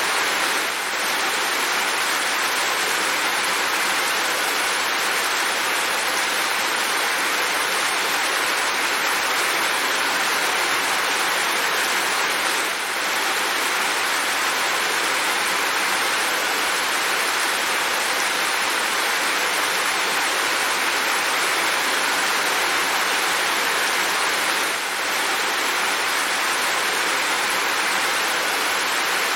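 Steady rainfall: an even, unbroken hiss of rain, with a brief slight dip in loudness about every twelve seconds.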